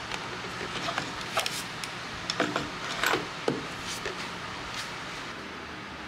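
Irregular light clicks and knocks of objects being handled, over a steady low hum; the knocks die away about five seconds in.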